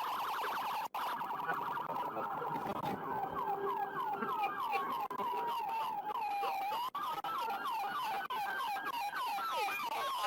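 Police car sirens sounding together: one in a slow wail that falls and rises over several seconds, another in a fast yelp of short falling sweeps, about three a second. The sound cuts out briefly twice.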